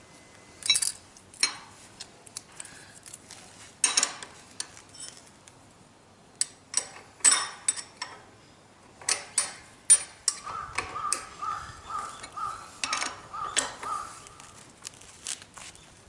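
Metal tools and motorcycle front-wheel parts clinking and knocking as the wheel is reassembled: a series of sharp, separate metallic clanks, with a run of quick repeated clicks, about two or three a second, in the second half.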